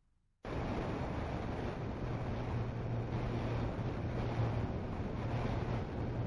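Wind rushing over the onboard camera microphone of a Multiplex Twinstar RC plane in flight, with a steady low hum from its two spinning propellers. It starts suddenly about half a second in.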